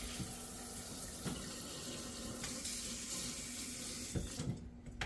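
Kitchen tap running water into a sink, with a few light knocks, then shut off near the end.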